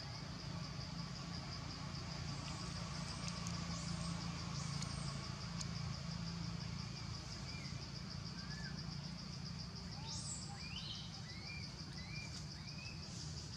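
Outdoor ambience dominated by insects trilling steadily in a fast, even pulse over a low hum. A few short rising-and-falling chirps come near the end.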